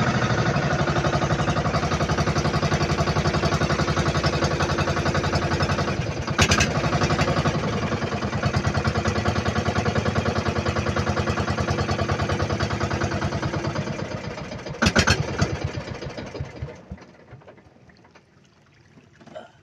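Small outrigger boat's engine running with a fast, steady chugging, with a sharp knock about six seconds in. About fifteen seconds in there is a clatter, then the engine winds down and stops.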